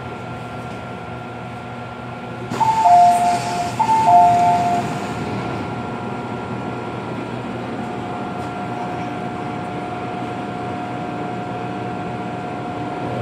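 MTR M-Train passenger doors opening at a station stop. A sudden rush of noise comes about two and a half seconds in, and a two-tone high-low door chime sounds twice. The steady hum of the stationary train follows.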